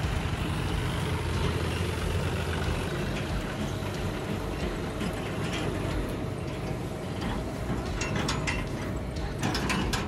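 Claas CT 40 combine harvester running: a steady engine drone with the clatter of its working mechanism, and a few sharp clicks near the end.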